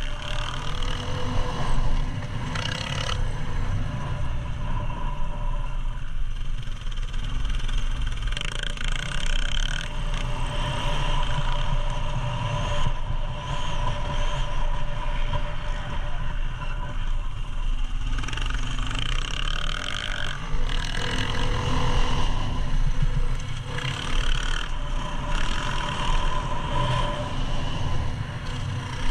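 Dirt bike engine under the rider, revving up and falling off again and again as it is ridden hard around a motocross track, with wind buffeting the on-bike microphone.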